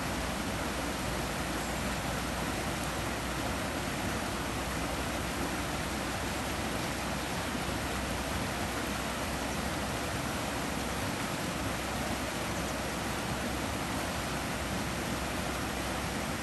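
Small river rapids: shallow water rushing over a low rocky ledge and around stones in a steady, unbroken rush.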